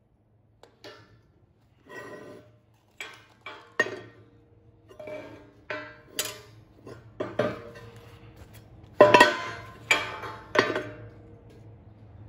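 Steel parts being handled in a fabrication shop: a dozen or so irregular metal clanks and taps, several ringing briefly, the loudest pair about nine and ten seconds in, over a faint low steady hum.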